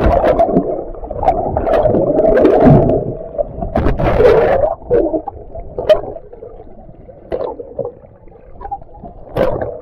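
Water sloshing and gurgling around an action camera dipped at and below the sea surface, heard muffled from underwater. It is loudest in the first half, then quieter with a few short knocks.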